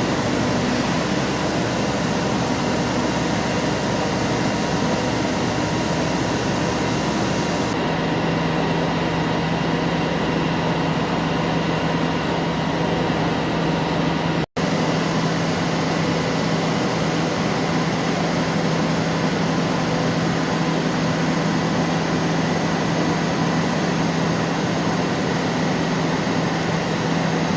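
Large CNC lathe running: a steady mechanical hum and hiss with a few constant tones. A steady low hum comes in about eight seconds in, and the sound cuts out for an instant about halfway through.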